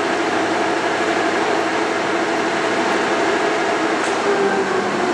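Leblond Regal 26-inch heavy-duty lathe running with nothing in the chuck, its headstock gearing giving a steady hum made of several steady tones.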